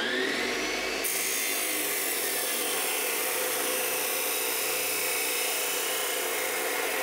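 Abrasive chop saw spinning up with a rising whine, then its cut-off wheel grinding through steel bar stock about a second in: a steady, loud grinding hiss.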